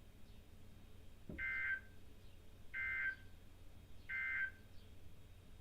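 Emergency Alert System end-of-message (EOM) code: three short bursts of two-tone digital data screech, about a second apart, marking the end of an alert. A soft thump comes just before the first burst.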